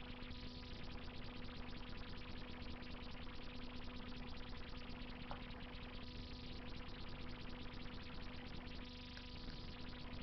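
Wood fire crackling in a brick Russian stove, a dense run of small rapid pops and snaps, over a steady synthesizer-like drone.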